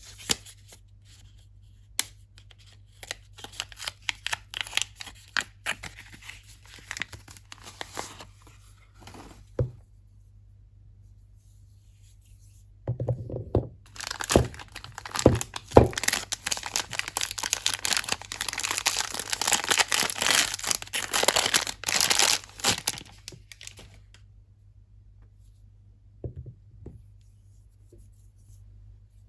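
Soap packaging being opened by hand: wrapping crinkling and tearing, with scattered taps and clicks. A long, dense spell of tearing and crinkling comes after a short pause about halfway through, with a few knocks as it starts.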